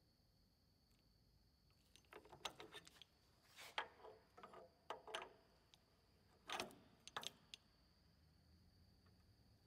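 Scattered metallic clicks and short rattles in a few clusters from a Weinig Unimat 1000 moulder's spindle being repositioned by hand, its adjusting shaft and clamping levers worked.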